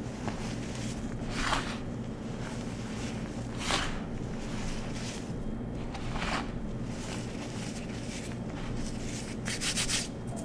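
Hands squeezing and scooping a pile of crumbled glitter bath bomb powder: soft crunching swishes every two seconds or so, then a quick run of crackles near the end, over a steady low hum.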